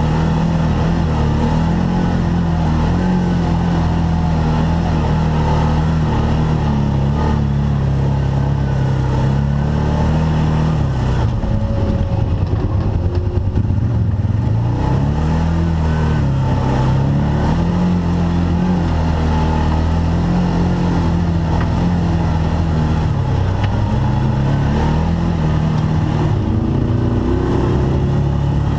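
Arctic Cat Wildcat side-by-side UTV engine running under changing throttle, its pitch rising and falling. It drops off for a few seconds about twelve seconds in, then picks up again.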